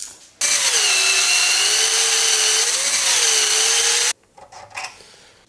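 Metabo cordless drill spinning a bit that grinds down a steel sprocket clamped in a vise. It starts about half a second in and runs for nearly four seconds, its pitch sagging and recovering as the bit bears on the metal, then stops suddenly.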